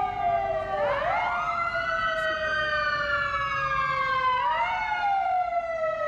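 Emergency vehicle siren wailing. Its layered tones sweep up quickly about a second in and again around four and a half seconds, then slide slowly down in pitch.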